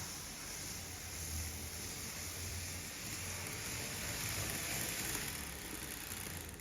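Odakyu train running: a steady running hiss with a pulsing low motor hum, growing slightly louder towards the end.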